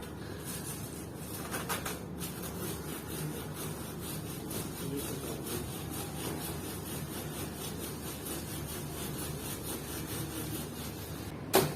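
Hand saw cutting through a tree branch, steady back-and-forth strokes of the blade rasping in the wood, with one sharp knock near the end.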